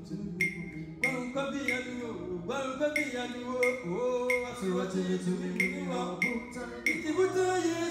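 Male vocal group singing a gospel song, several men's voices in harmony, over a steady ticking beat of about two ticks a second.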